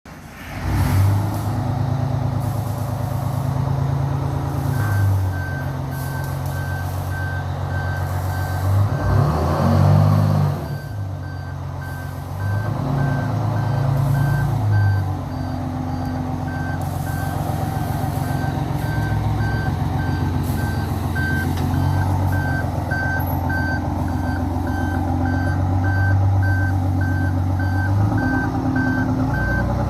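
Truck engine running steadily, with a reversing alarm beeping at a regular pace from about five seconds in. There is a louder surge in the engine noise around ten seconds in.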